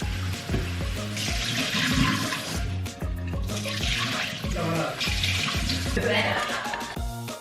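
Water running from a kitchen tap over vegetables being rinsed in a pot, the rush swelling three times. Background music with a steady beat plays throughout.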